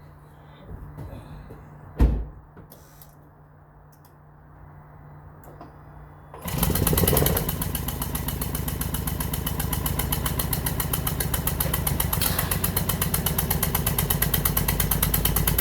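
A sharp knock about 2 s in over a low steady hum. About 6.5 s in the Toyota Prius Gen 2's 1.5L engine is spun up by the hybrid system and keeps turning over with a fast, even pulsing, with cylinder 1's spark plug out and its injector unplugged for a spark and compression check.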